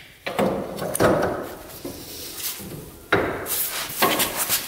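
Several sharp metal knocks and clunks, about four, each fading quickly, as the rear hub knuckle and suspension arms of an Arctic Cat Wildcat 1000 side-by-side are knocked and shifted into position during reassembly.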